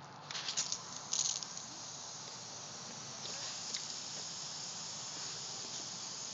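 Pop-up lawn sprinkler head spraying water with a steady high hiss. The hiss comes in two short sputtering bursts in the first second and a half before it settles.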